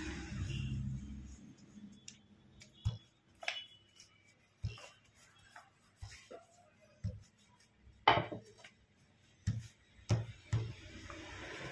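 A rolling pin rolling over a large sheet of puff pastry dough on a stone counter, a low rumble at the start and again near the end. In between, scattered sharp knocks and taps as the pin is handled and the dough is patted and floured by hand, the loudest about eight seconds in.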